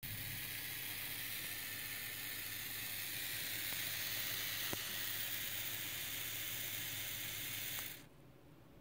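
Steady background hiss with a low hum and a few faint ticks. It drops away sharply shortly before the end.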